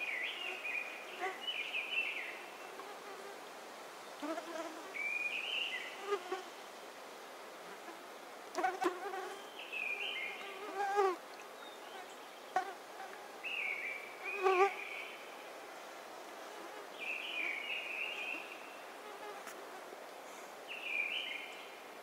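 Mistle thrush singing short fluting phrases, one every few seconds, with mosquitoes whining close by.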